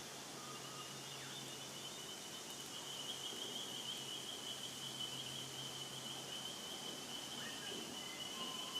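Pet budgerigars chirping faintly now and then, a few short calls near the start and near the end, over a steady high trill and a faint low hum.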